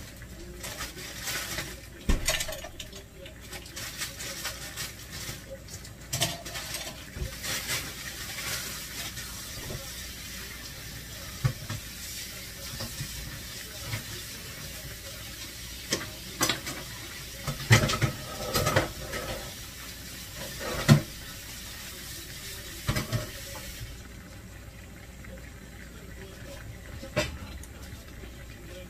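A kitchen tap running into the sink with dishes and utensils clinking and clattering now and then; the water is shut off about four fifths of the way through.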